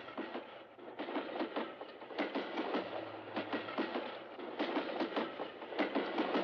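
Moving railway carriage rattling and clattering, with a steady run of irregular clicks and knocks from the wheels and the car body.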